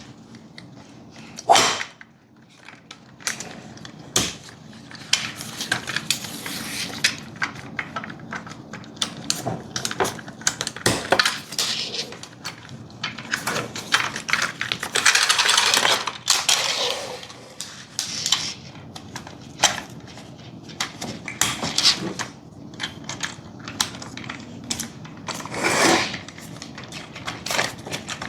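Plastic curtain buckles being pushed into the S-Wave gliders on an aluminium curtain track: a run of irregular light clicks and clacks, with a few longer sliding swishes as parts are slid along the track.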